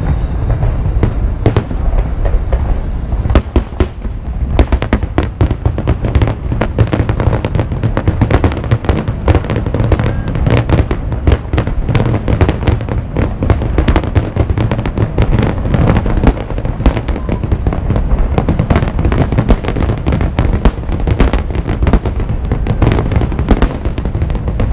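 Aerial fireworks display: a rapid, continuous barrage of shell bursts and crackles over a heavy low rumble, thickening into many bangs a second about four seconds in.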